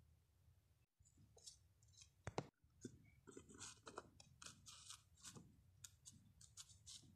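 Faint, irregular clicks, taps and scrapes of small plastic Littlest Pet Shop figurines being handled and moved across a floor, starting about a second in, with one sharper click a little later.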